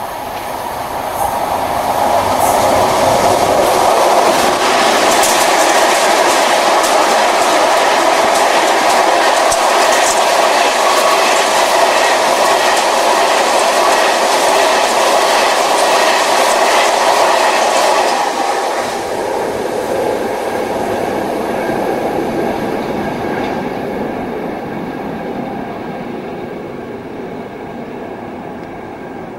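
A Class 60 diesel locomotive passing with a long train of covered hopper wagons while a Class 47 diesel passes the other way on the adjacent track, wheels clicking rapidly over the rails. The noise builds over the first few seconds, stays loud, drops about eighteen seconds in, and fades away.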